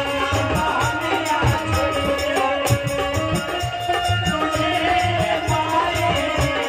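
Live folk music from a small stage band: sustained harmonium chords over a steady beat of hand-drum strokes, with jingling percussion on top.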